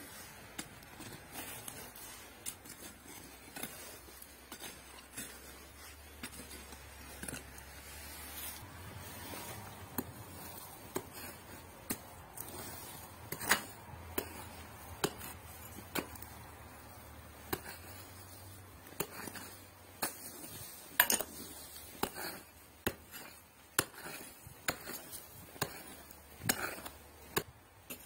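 Short-handled mattock chopping into dry, stony soil: irregular sharp strikes about one a second, some much louder than others, with scraping and loose stones clinking.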